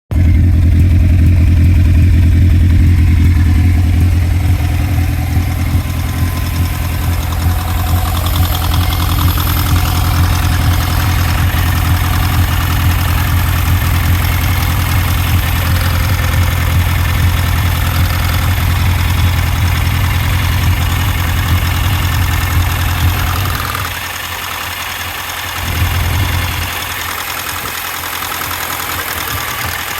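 Car engine idling with a misfire on cylinder 4, a steady low drone. Near the end the deep drone drops away, comes back briefly, then fades.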